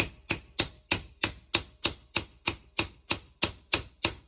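Steady, light metal-on-metal taps, about three a second, on a 1996 Buick air-suspension compressor held in a vise. The taps come from the top, to try to turn a shaft that appears seized solid.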